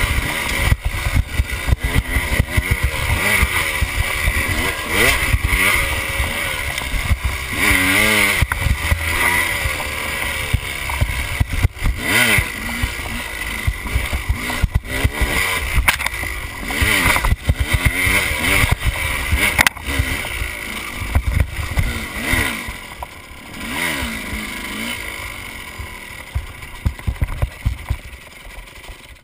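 KTM enduro dirt bike engine revving up and down as it is ridden over rough ground, with frequent knocks and rattles from the bike; the engine quietens over the last few seconds.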